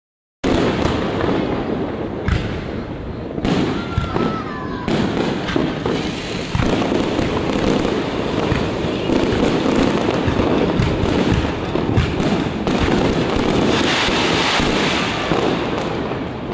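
Fireworks display: a dense, continuous barrage of bursting shells and crackle, with a short whistle about four seconds in. It starts abruptly after a brief moment of silence.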